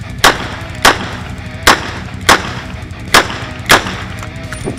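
Ruger GP100 Match Champion revolver firing six shots, a full cylinder, in three quick pairs; the shots in each pair are about half a second apart.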